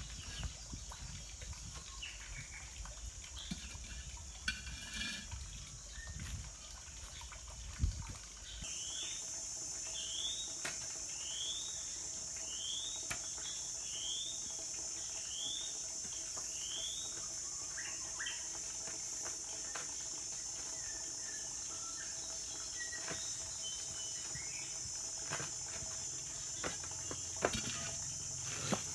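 Tropical forest ambience: a steady high insect drone, with a bird repeating a short rising chirp about seven times in a row. Scattered light knocks and taps come from hands-on work. In the first seconds there is faint water sloshing as hands work inside a clay water jar.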